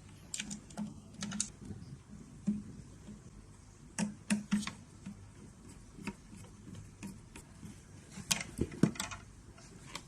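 Irregular small clicks and taps in clusters with short pauses between them, as screws are taken out of the base of a beauty machine and its parts are handled.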